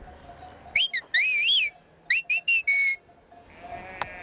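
A shepherd whistling to herd sheep: two short rising whistles about a second in, then a warbling held whistle, then a quick run of short rising whistles ending in a longer steady note.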